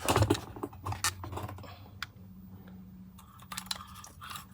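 A run of light clicks and knocks from hard objects being handled. They come thickly in the first half-second and then only now and then.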